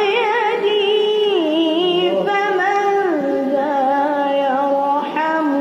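Unaccompanied solo voice singing a nasheed (religious supplication song) in long, ornamented held notes with vibrato, the melody stepping down in pitch a few times.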